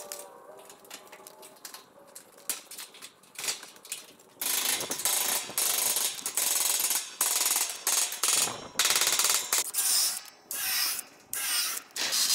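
Cordless drill boring holes into the wooden base frame, starting about four seconds in and running in several bursts with short pauses, its motor whine rising and falling near the end. Before that, light clicks and rattles of the wire panels being handled.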